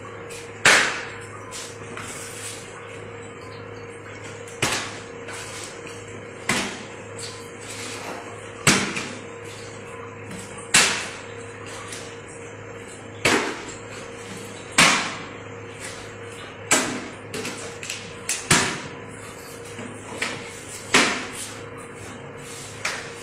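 A series of sharp slaps, about eleven of them, irregularly spaced roughly two seconds apart, each ringing briefly, over a steady low hum.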